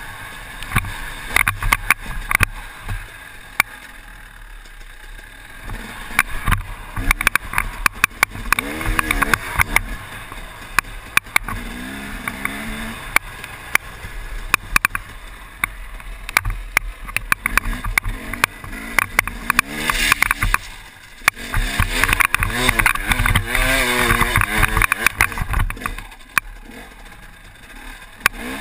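KTM 250 EXC dirt bike engine revving up and down as it is ridden over rough off-road ground, with heavy wind rumble and many sharp knocks on a helmet-mounted camera's microphone.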